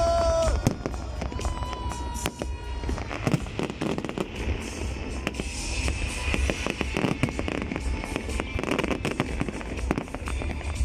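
Aerial fireworks display: many bangs and crackling shell bursts in quick succession, one after another.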